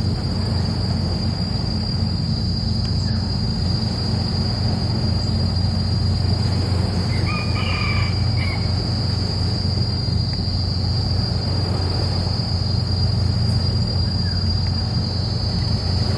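Steady outdoor ambience: a low rumble underneath and a continuous high-pitched insect buzz, with a rooster crowing once about halfway through.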